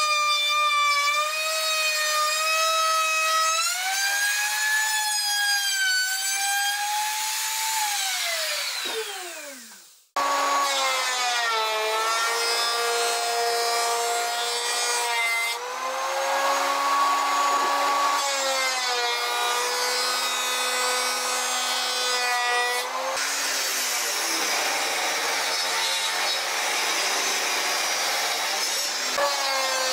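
Electric woodworking power tool cutting pine, its motor whine dipping and shifting in pitch under load. About nine seconds in it winds down with a falling pitch and stops, then starts again and runs on.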